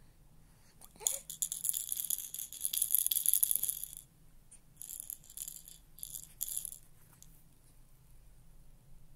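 A baby's toy rattle shaken: a steady, fast rattle for about three seconds starting a second in, then three short shakes.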